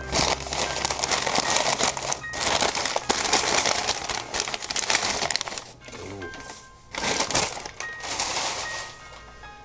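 Paper wrapping crinkling and rustling as it is pulled off and handled, loud and continuous for the first half, then in a few shorter bursts near the end.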